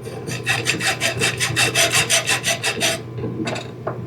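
A quick run of rasping, scraping strokes, about seven a second, stopping about three seconds in, followed by a couple of faint knocks.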